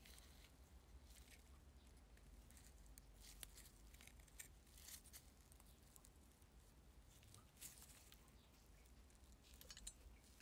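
Faint scattered clicks and scrapes of steel pliers gripping and bending the rusted end of a brass gasoline-lighter tube, forcing the stuck part open, over a low steady hum.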